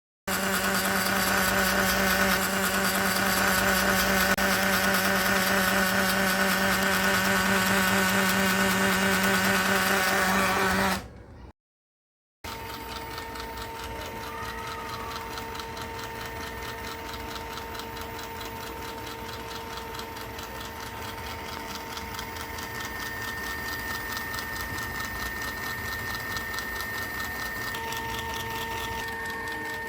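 A large NEMA stepper motor running under a stepper driver at a steady step rate, giving a steady mechanical whine. About eleven seconds in the sound cuts off for a moment and comes back quieter, with a steadier, higher-pitched whine.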